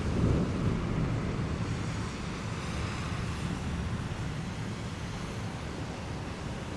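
Rumble of thunder dying away over the first couple of seconds, leaving the steady hiss of heavy rain.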